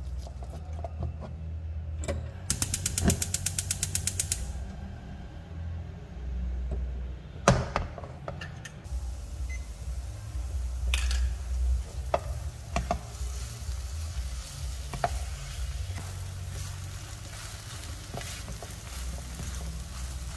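Silicone spatula stirring and scraping thick choux dough around a non-stick frying pan while the paste cooks on the heat, with a low rumble and scattered light knocks. A few seconds in, a digital kitchen timer beeps rapidly, about six times a second for two seconds, as it is set; a single sharp click follows a few seconds later.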